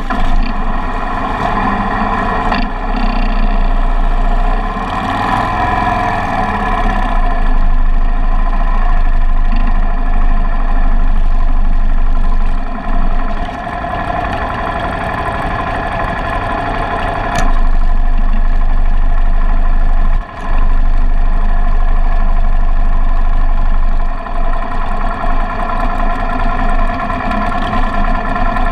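Motorcycle engine running loudly and steadily, with brief dips in level about 13 and 20 seconds in.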